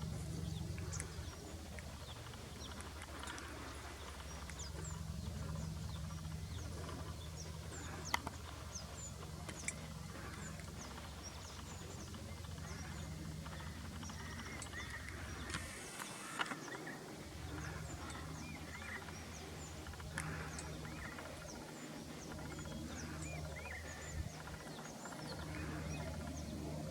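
Birds calling with many short, scattered chirps, over a steady low hum.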